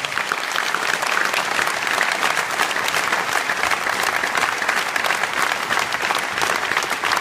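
A large audience applauding steadily: dense, fast clapping from many hands.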